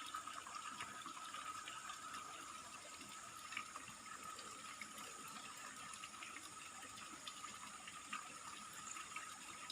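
Faint, steady rush of running water from a waterfall, with a thin, steady high-pitched tone held over it.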